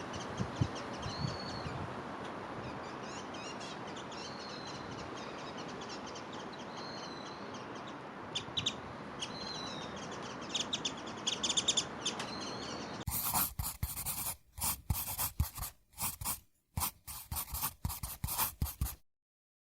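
Small birds calling outdoors: short, high chirps repeated about every second and a half over steady background noise, with a few quicker chirp clusters. About thirteen seconds in, this gives way to a run of sharp, irregular clicks and scratches that stops abruptly.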